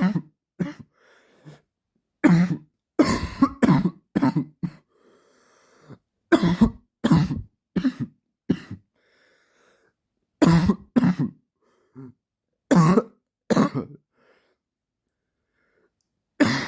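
A man's dry cough, repeated in bouts of two to five quick, sharp coughs separated by short silences.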